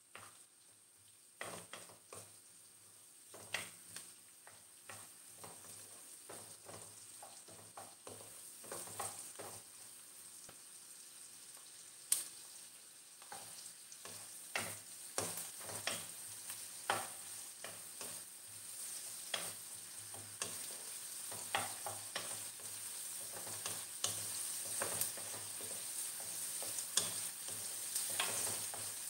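Sliced onions sizzling in butter in a pan, stirred with a wooden spoon that scrapes and knocks against the pan every second or so. The sizzle grows steadily louder.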